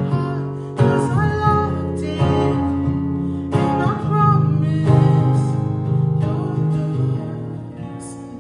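Music: acoustic guitar chords struck slowly, about one every second and a half, with a soft sung line over the first half, dying away toward the end as the song finishes.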